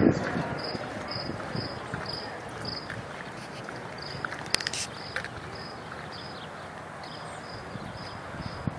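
Cricket chirping steadily outdoors, short high chirps about two a second, over a hiss of open-air background noise. A couple of sharp clicks come about four and a half seconds in.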